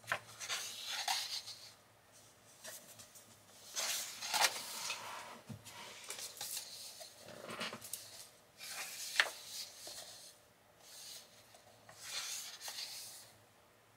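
Paper pages of a softcover colouring book being turned and pressed flat by hand: a papery swish and rub several times, each lasting about a second.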